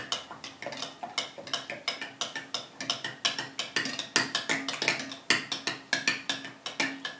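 Metal spoon stirring a runny glue-and-borax slime mixture in a clear bowl, clinking against the bowl's side in quick, regular strokes, about five or six clinks a second.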